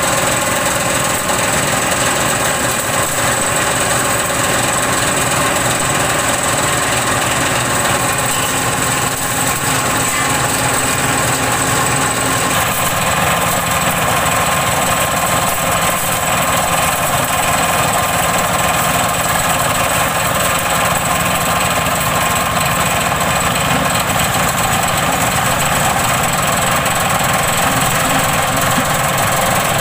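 Organic-waste chopper with twelve blades, driven by a single-cylinder diesel engine, running steadily while it shreds organic waste into compost.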